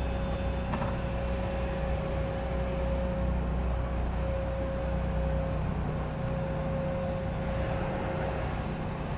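2015 KTM 690 Enduro R's single-cylinder engine idling steadily while the bike waits at a gate, with a thin steady whine above the engine note and a faint click about a second in.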